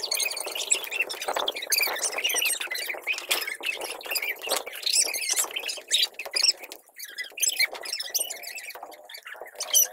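Several children squealing, shrieking and laughing as they dodge and run in a game of tag, with quick scuffs and slaps of feet and hands in between.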